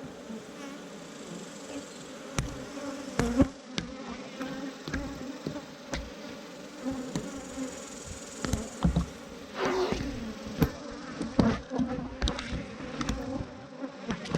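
Dense buzzing of a disturbed honeybee colony swarming out and starting to sting. Scattered sharp knocks and thumps, the loudest about three seconds in.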